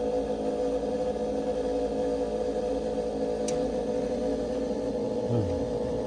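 Old Lennox gas furnace running, its draft inducer motor humming steadily with one strong steady tone. A single short tick about halfway through, and near the end a brief low falling sound after which a deeper steady hum joins in.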